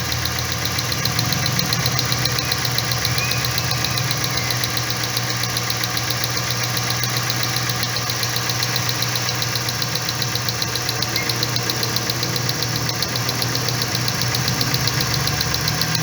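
2012 Dodge Ram pickup engine idling steadily, with a fast, even ticking over the low hum, while its number 3 ignition coil is being tested for a misfire.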